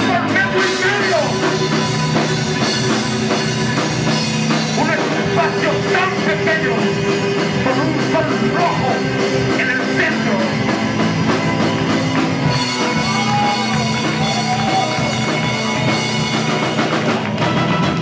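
Live instrumental rock band playing loudly: drum kit, electric guitar and violin together, with long held and sliding violin notes over steady drumming.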